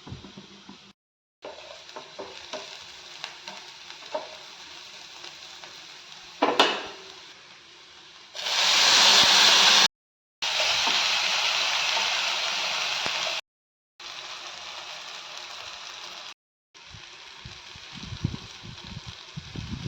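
Food sizzling in hot oil in a pan while being stirred, heard in several short clips separated by brief silent gaps. A sudden loud burst of sizzling comes about six and a half seconds in, and the sizzle is loudest from about eight to thirteen seconds.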